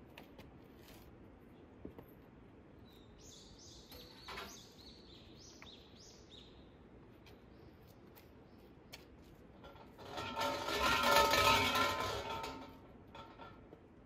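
Shinto shrine bell (suzu) shaken by its hanging rope, a jangling rattle for about three seconds near the end. Earlier, a bird gives a short run of high chirps.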